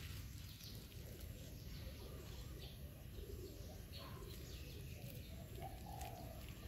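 Faint outdoor ambience with a steady low rumble, and a few soft bird calls in the background, about three seconds in and again near the end.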